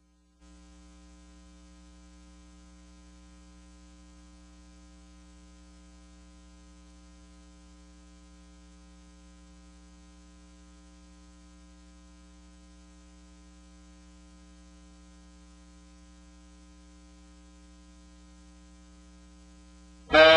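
Steady electrical hum with a stack of buzzy overtones that does not change; loud music cuts in right at the end.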